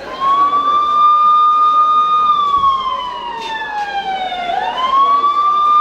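A siren wailing: a single tone rises and holds, slides slowly down, then climbs back up again about four and a half seconds in.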